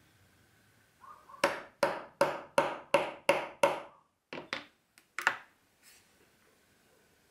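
A mallet striking a punching awl through book board to cut a slot for linen tape: seven quick sharp strikes, about three a second, then a few lighter taps.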